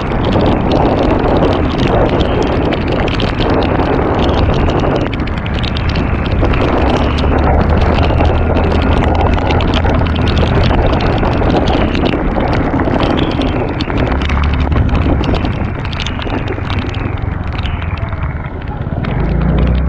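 Wind rushing over the camera microphone of a moving scooter, over the scooter's engine and its tyres on a rain-soaked road in heavy rain. The noise is loud and steady throughout.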